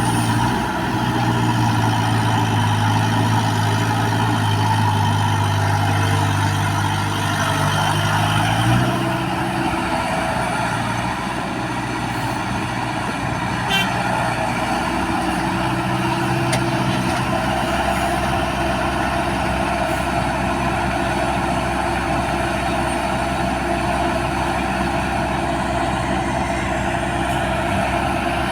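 Backhoe's diesel engine running steadily while it works. About a third of the way in, the engine note changes and settles to a steadier, lower-level drone, with one short click around the middle.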